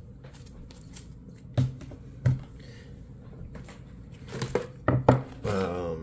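Mail packages being handled on a table: several sharp knocks and clicks with some rustling, and a brief bit of voice near the end.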